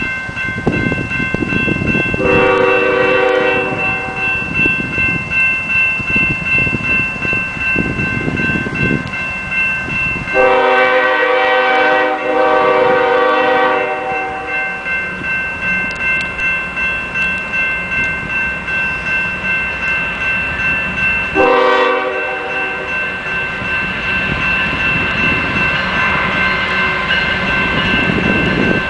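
Union Pacific diesel locomotive blowing its multi-note horn for a grade crossing. There is a short blast, a long one, a short one, and another starting at the end, the standard crossing signal. The crossing bell rings steadily throughout, with the low rumble of the approaching locomotive.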